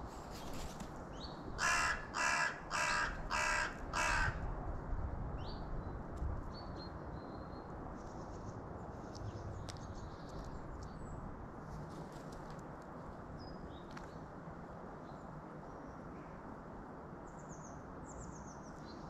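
Carrion crow cawing five times in a quick, even series, followed by faint, scattered chirps of small birds.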